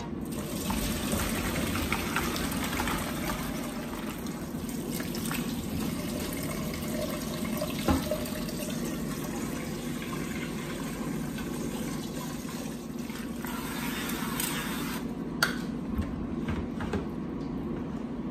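Hot pasta water pouring and splashing from a steel pot through a colander into a stainless steel sink as boiled pasta shells are drained, with a few short knocks along the way.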